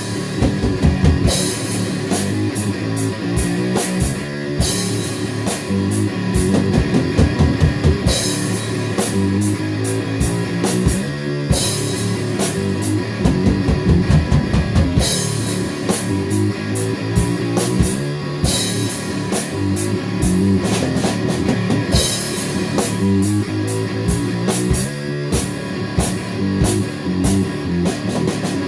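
Rock music with a full drum kit and distorted electric guitar, steady and loud, with frequent cymbal crashes.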